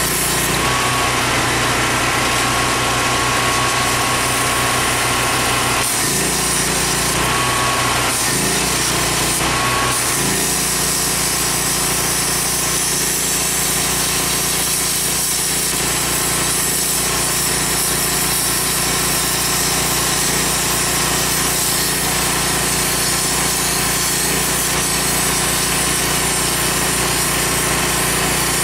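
Electric grinder with a cut-off wheel cutting through the rusted sheet-metal rocker panel of a Datsun 1600, running without a break; its pitch shifts a few times between about six and ten seconds in as the load on the wheel changes.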